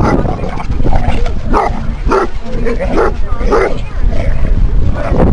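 Dogs barking, a run of about five short barks in the middle, over a steady low rumble.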